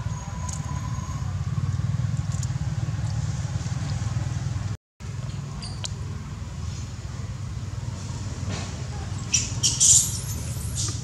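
Baby macaque squeaking in a quick, loud cluster of high-pitched calls near the end, over a steady low rumble that drops out briefly about five seconds in.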